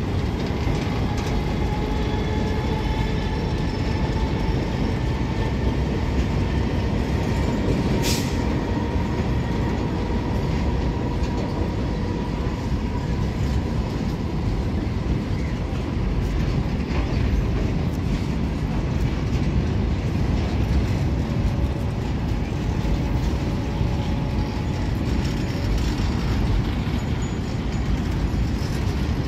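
Freight train's wagons rolling past steadily, with a faint thin squeal that rises slowly over the first dozen seconds. One sharp clack comes about eight seconds in.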